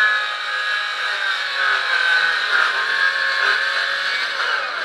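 Circular saw running through phenolic plywood formwork board: a steady high whine whose pitch starts to fall near the end.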